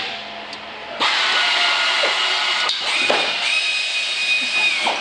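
Hand drill starting about a second in and running with a steady whine for about four seconds, drilling out a rivet head.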